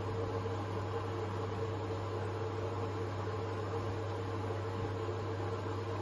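Hoover H-Wash 500 front-loading washing machine running a colour wash, a steady motor hum as the drum turns the laundry.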